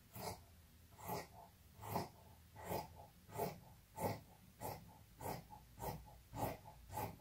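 Dressmaker's shears snipping through black dress fabric along a chalked cutting line, a steady rhythm of about eleven short crisp cuts, roughly three every two seconds.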